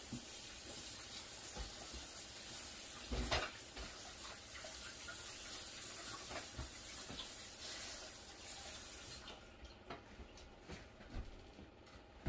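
Kitchen faucet running in a steady hiss, with a thump about three seconds in; the water is shut off about nine seconds in, followed by a few light knocks and clatters.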